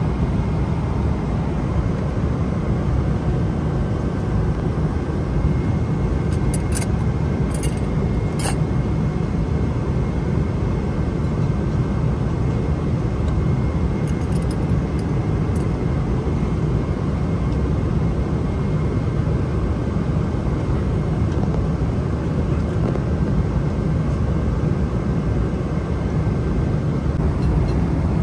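Steady low rumble of an airliner cabin in cruise: engine and airflow noise, even in level throughout. A few faint clicks come about 7 and 14 seconds in.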